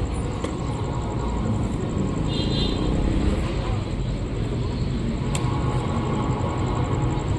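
Talgo passenger train running through the station, a steady rumble with a sharp click or two.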